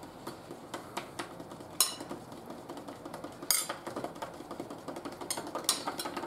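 A spoon scraping and clinking against a bowl and plates while sweetcorn is spooned onto taco shells. There are many light taps, with three sharper clinks about two seconds apart.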